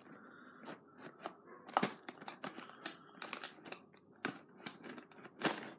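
A knife blade worked under the glued flap of a cardboard snack box to pry it open: irregular scraping, clicking and crinkling of the cardboard, with a couple of sharper snaps, one about two seconds in and one near the end.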